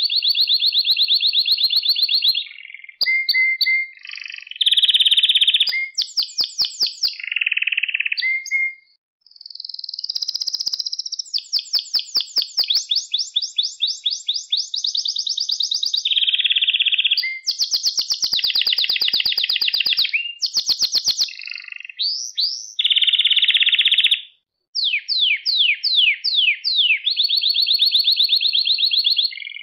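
Domestic canary singing a long song of rapid trills. Each phrase is a run of quick repeated notes, and the pitch and speed change from phrase to phrase, with two short breaks about nine and twenty-four seconds in.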